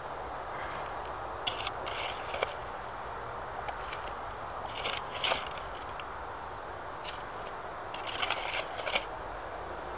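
Shovel blade scraping and crunching into compacted ash and dump soil, in repeated short bursts with a sharp click or two, over a steady background hiss.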